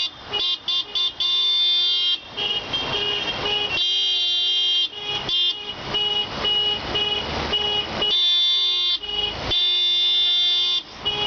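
Several car horns honking together in protest: a few short toots about a second in, then long held blasts at different pitches overlapping, with brief breaks.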